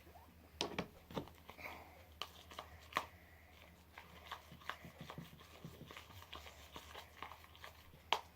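Fluffy shaving-foam slime being mixed and worked by hand, giving irregular soft sticky clicks and pops, a few of them louder.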